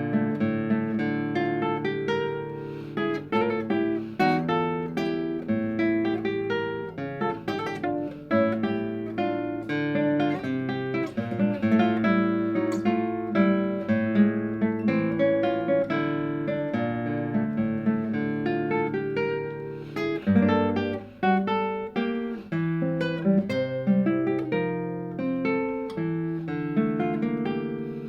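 Classical guitar playing a milonga: a continuous run of plucked notes over a moving bass line.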